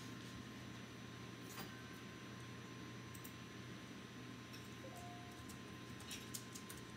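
Quiet room tone with a steady electrical hum, broken by a few faint light clicks and taps, with a small cluster of them about six seconds in.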